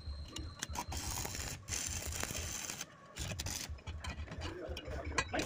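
Light clicks and scraping of a welding electrode and steel being handled against a steel plate, over a low hum.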